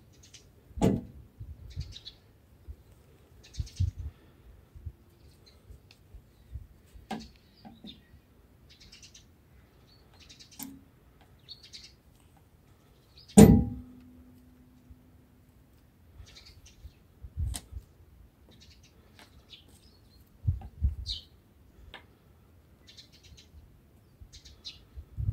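Small birds chirping on and off in short bursts, with several sharp knocks and thumps in between as a cat bats at a twig; the loudest knock, about halfway through, rings on for a couple of seconds.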